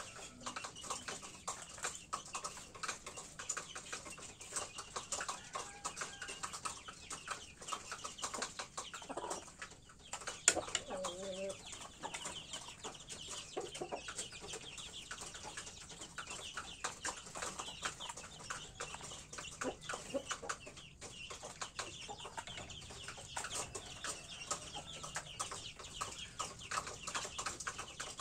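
Domestic chickens, hens and chicks, clucking, with many short ticks and taps throughout and one sharper knock about ten seconds in, followed by a short pitched call.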